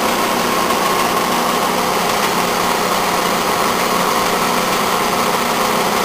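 Okuma-Matrix GP33 OD cylindrical grinder running on its regular intermittent feed cycle: a steady machine hum with several constant tones from the spinning 24-inch wheel and its drives.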